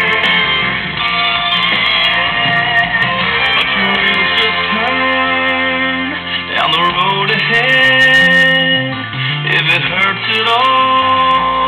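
Music with guitar and a singing voice playing through a restored Philco tube radio.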